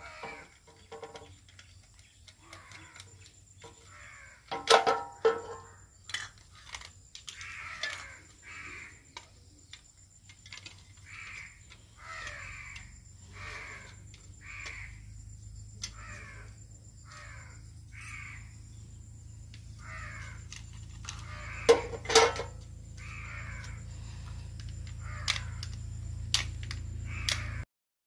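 Crows cawing over and over, one short call every second or so. Two loud knocks of the switch parts being handled break in, about five seconds in and again about three quarters of the way through.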